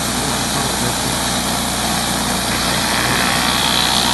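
Pressure washer's petrol engine running steadily.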